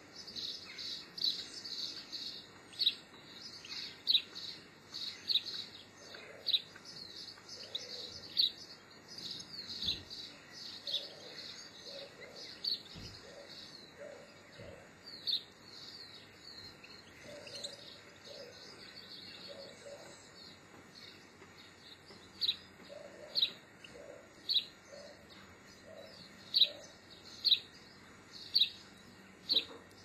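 Small songbirds calling: a dense run of high chirps and twitters for the first ten seconds or so, thinning out, then one short, sharp call repeated about once a second over the last eight seconds.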